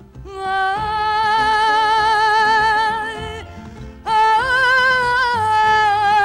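Female fado singer holding two long sung notes with a wide vibrato, the second stepping briefly higher in the middle, over plucked fado guitar accompaniment.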